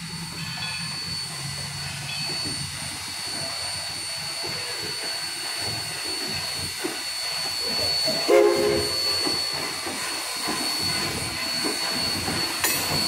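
Oil-fired steam locomotive rolling slowly past, with running rumble and knocking under a steady high whine. A little past eight seconds the whistle gives one short toot.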